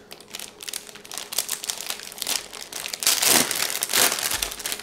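Plastic food packaging crinkling and rustling as it is handled, with louder crinkles about three and four seconds in.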